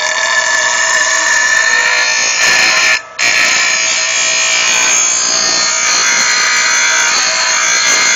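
Steel lawn mower blade being sharpened on the fine wheel of a bench grinder: a loud, harsh grinding over the grinder's motor whine, in two passes with a brief break about three seconds in, stopping at the very end.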